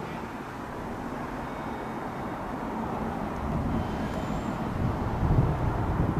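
Steady outdoor background noise with a low vehicle rumble that swells to its loudest about five seconds in.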